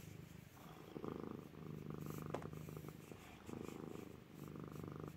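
Tabby cat purring close up while mouthing fabric, the purr swelling and easing in cycles of a second or two with each breath in and out. A single faint click about halfway through.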